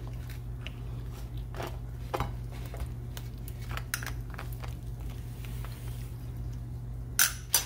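Metal spoon clinking and scraping against a ceramic plate while picking through a roasted tuna head, a scatter of small clicks with a couple of sharper clinks near the end.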